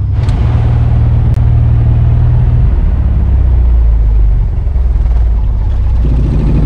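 1975 Mooney M20F's 200 hp fuel-injected four-cylinder Lycoming IO-360 engine and propeller running at low taxi power, heard inside the cabin. Its note drops lower about three seconds in and changes again near the end as the mixture is pulled and the engine winds down for shutdown.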